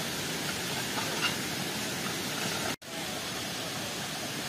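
Steady hiss of heavy rain, cutting out for an instant about three seconds in.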